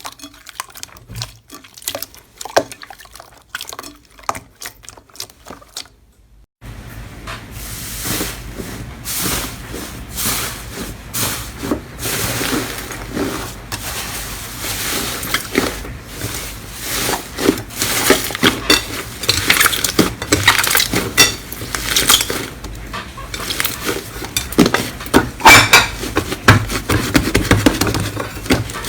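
Slime being squished and stretched, giving wet clicks, pops and squelches. About six and a half seconds in it cuts to a louder clip with denser crackling pops.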